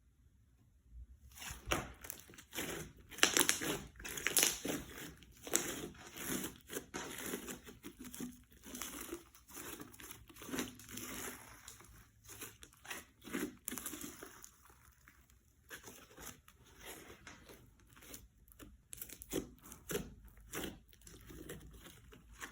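Slime being squeezed and stretched by hand, making a dense run of crackling clicks and pops that starts about a second in.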